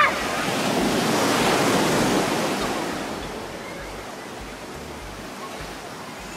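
Small ocean waves breaking and washing up a sandy beach: the surf swells over the first couple of seconds, then dies down to a softer, steady wash.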